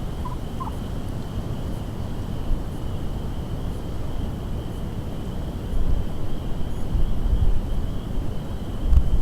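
Strong wind buffeting the microphone, rumbling throughout and gusting harder in the second half. Near the start a wild tom turkey gobbles faintly in a few short notes, and a faint steady high-pitched tone runs underneath.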